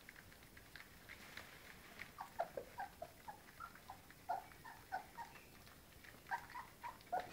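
English Springer Spaniel puppies making short, soft squeaks and whimpers while feeding at a shared bowl, many brief ones in a row from about two seconds in.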